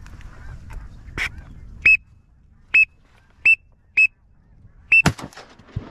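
Five short, sharp high-pitched peeps at uneven spacing, like a whistle call, then a shotgun shot about five seconds in, with a short echo trailing after it.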